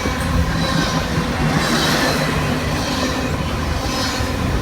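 Canadian Pacific freight train's cars rolling past on the rails: a steady, even rumble of wheels on track.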